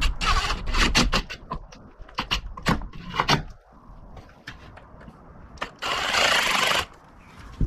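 Cordless Milwaukee power driver running for about a second near the end, a steady buzz as it drives a handguard mounting bolt. Before that, a series of irregular clicks and knocks from handling the tool and the handguard.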